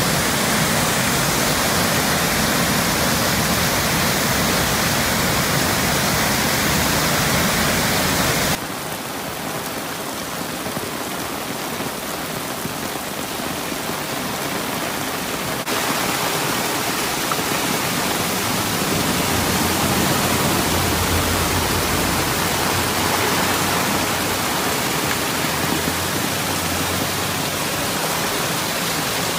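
Heavy rain and rushing floodwater: a steady torrent of muddy water pouring down a swollen channel, then rain pouring onto a flooded street. The noise drops and changes abruptly about eight and a half seconds in and again about sixteen seconds in.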